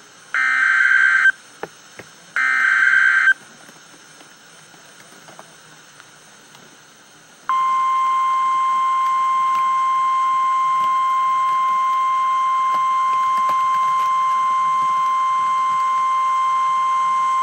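Emergency Alert System signals: two short buzzy data bursts of the SAME header, about a second each, then after a pause of a few seconds the NOAA Weather Radio warning alarm, a single steady tone held for about ten seconds that cuts off abruptly. Together they signal a National Weather Service severe thunderstorm warning.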